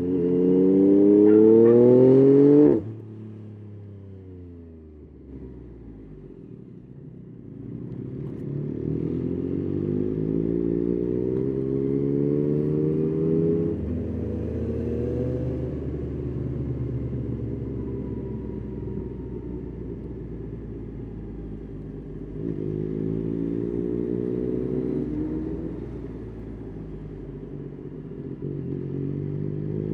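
Yamaha Tracer 9's three-cylinder engine under way, revs climbing hard for the first few seconds, then the throttle shut abruptly about three seconds in. It pulls up through the revs again several more times, with steadier running in between.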